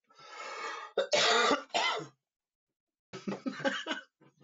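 A man coughing hard two or three times about a second in, after a breathy lead-in, then a brief bit of voice.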